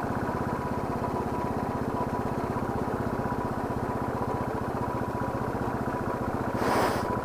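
Motorcycle engine running at steady revs while riding, with a brief burst of rushing noise near the end.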